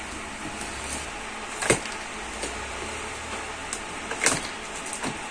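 Packing tape on a cardboard carton being slit and torn open with a screwdriver. A few short sharp cracks of tape and cardboard, the loudest about a second and a half in and again about four seconds in, over steady background noise.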